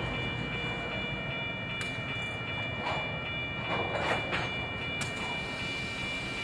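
EMD diesel road-switcher locomotive working a switch job with railcars: a steady low engine rumble under steady high-pitched tones, with a few sharp clicks and short noisy bursts around the middle.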